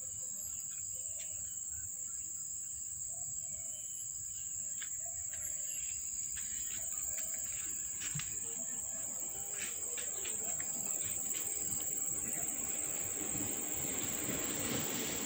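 Steady high-pitched drone of insects, with a swell of broader noise near the end.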